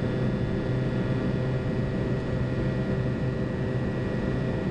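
Steady cockpit noise of a Boeing 737-200 in its climb after takeoff: an even rush of airflow and engine noise from its Pratt & Whitney JT8D turbofans, with a low hum and a faint high whine under it.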